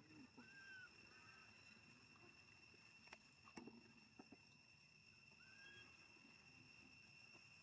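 Near silence, with a faint steady high insect drone, a few faint short chirping calls and a few light clicks in the middle.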